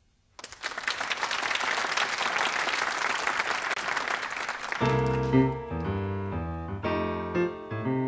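Audience applause on a cassette recording, starting suddenly half a second in and lasting about four seconds. Then a jazz organ comes in with held chords and notes over a low line.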